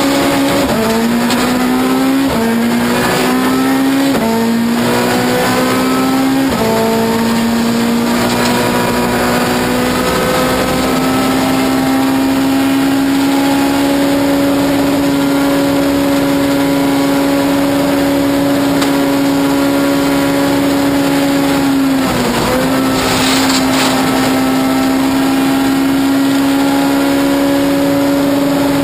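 Ford Fiesta S2000 rally car's 2.0-litre four-cylinder engine heard from inside the cabin, accelerating hard with quick upshifts: the pitch climbs and drops back several times in the first seven seconds. It then holds a nearly steady pitch for about ten seconds, dips briefly about 22 seconds in, and steadies again.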